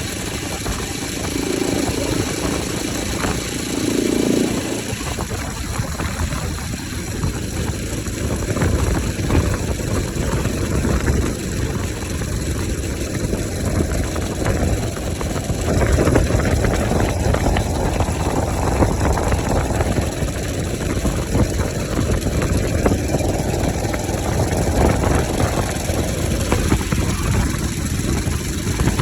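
Bajaj Pulsar RS 200's single-cylinder engine running with its air filter removed, mostly idling, with its sound swelling and easing off twice in the second half.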